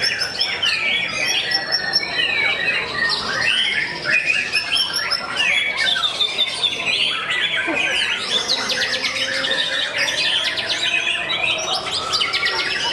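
Many caged white-rumped shamas singing over one another: a dense, unbroken tangle of whistles, chirps and fast rattling trills.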